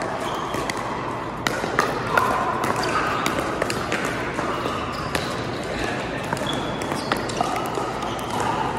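Pickleball paddles hitting a hard plastic pickleball during a rally: sharp, irregularly spaced pops that echo in a large indoor hall.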